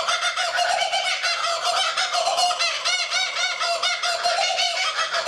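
Laughing kookaburra giving its laughing call: a fast, unbroken run of rising-and-falling hooting notes, several a second.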